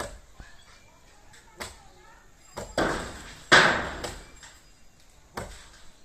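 Blade chopping into a coconut palm, a string of sharp strikes; the two loudest, about halfway through, each trail off in a short rustling noise.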